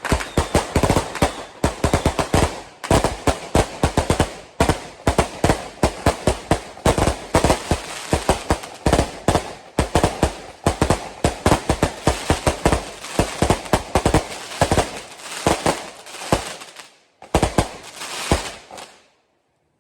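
Fireworks going off in a dense, rapid string of bangs, several a second like gunfire, for Lunar New Year's Eve. The bangs thin out near the end and die away.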